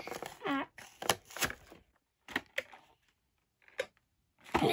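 A cardboard-and-plastic collector box being handled: a few scattered sharp clicks and taps with quiet gaps between them, and a louder rustle near the end.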